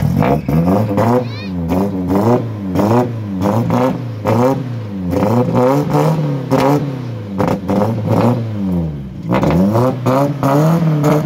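Car engine revved over and over in short throttle blips, the pitch climbing and dropping back with each one, about twice a second.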